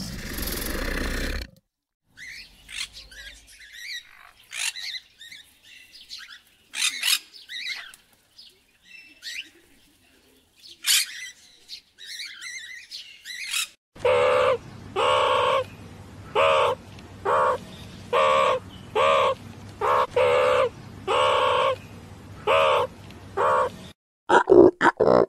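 Short rushing noise at the start, then scattered chirps and squawks from blue-and-yellow macaws. From about halfway, a loud harsh call repeats about once a second over a low steady hum, and a few sharp calls come near the end.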